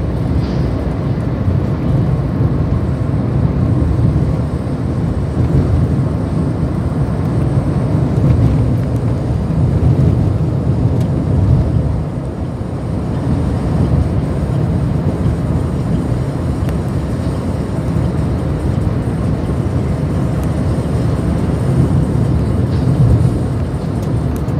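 Steady low rumble of road and wind noise from a car moving at freeway speed through a road tunnel, with traffic passing alongside; it eases slightly about halfway through.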